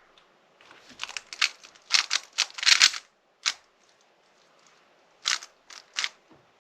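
Speedcube layers turned by hand, clicking and clacking: a quick flurry of turns for about two seconds, one more turn, a pause, then three single turns near the end.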